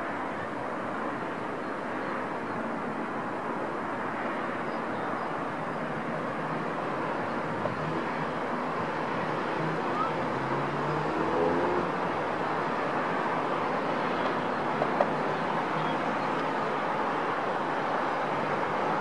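Steady wash of city traffic noise, growing slightly louder, with a faint engine drone coming through for a few seconds in the middle.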